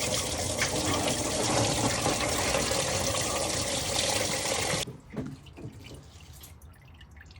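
Radiator coolant running in a steady stream from the drain into a bucket, cutting off suddenly about five seconds in; after that only faint drips.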